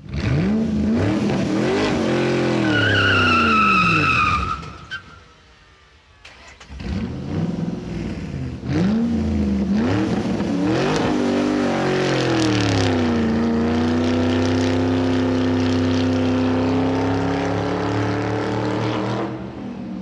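A car speeding, its engine revving up and dropping repeatedly as it shifts through the gears, with a tyre squeal a few seconds in. After a brief lull, the engine revs up again and holds a steady high pitch before cutting off near the end.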